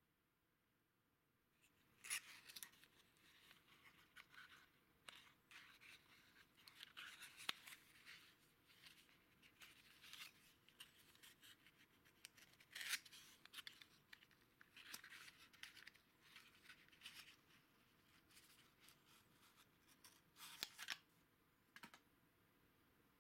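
Faint, irregular scratching and rustling of a small cardboard valve box being handled by the fingers, with several sharp clicks, starting about two seconds in.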